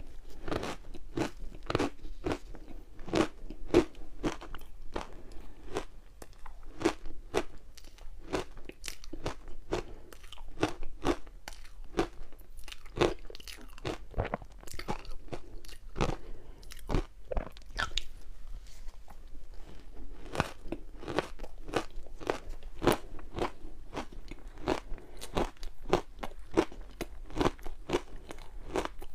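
Ice being bitten and crunched between the teeth, a steady run of sharp cracks, a few each second.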